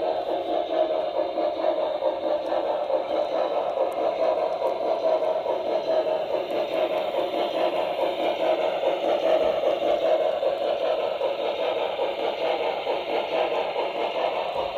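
Broadway Limited Paragon2 HO scale Pennsylvania Railroad 2-10-0 Decapod model running steadily. Its onboard sound system plays a fast, continuous steam-locomotive chuff and rattle through a small speaker.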